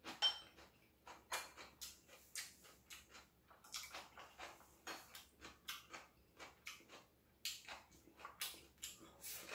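Metal chopsticks and spoon clicking against ceramic bowls, with chewing and mouth sounds in between: a quiet, irregular series of short clicks, the first one ringing briefly.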